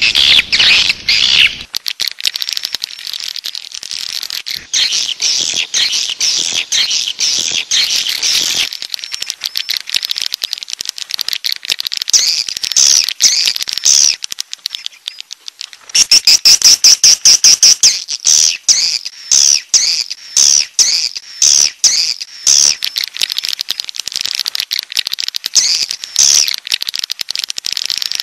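Swiftlet calls: dense, rapid chirping and twittering with quick clicks, the kind of swiftlet lure call played to draw wild swiftlets. A run of loud, evenly spaced chirps stands out a little past the middle.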